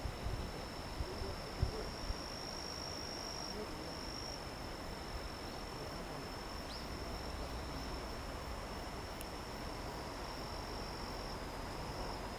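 Insects singing one continuous, steady high-pitched trill over a low background hiss, with a few faint knocks in the first two seconds.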